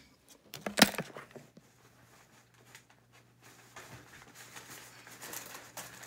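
Handling noise: one sharp knock about a second in, with a few lighter clicks around it, then faint rustling over a low steady hum.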